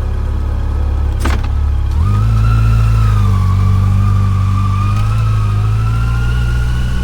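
Yamaha FJR1300's inline-four engine running on the move. There is a sharp click about a second in, then the engine note steps up and climbs slowly as the bike accelerates.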